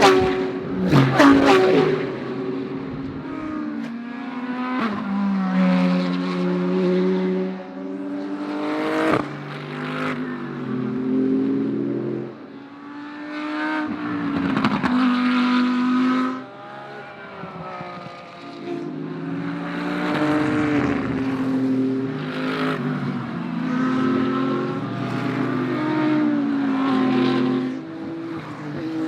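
GT3 race cars passing at speed one after another, their engines rising and falling in pitch through gear changes, with several cars often heard at once.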